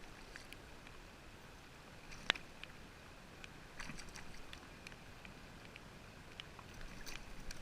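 Faint steady hiss with scattered small clicks and taps, one sharp tick about two seconds in, all muffled by a GoPro's watertight housing.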